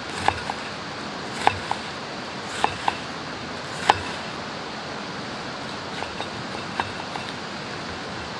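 Kitchen knife slicing a peeled onion on a wooden cutting board: sharp knocks of the blade striking the board, mostly in quick pairs, louder in the first four seconds and fainter later, over a steady hiss.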